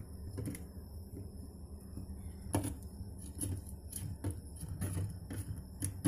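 Fingers mixing a wet green paste of ground leaves and aloe vera gel in a steel bowl: quiet, irregular small clicks and taps against the bowl, with one sharper click about two and a half seconds in.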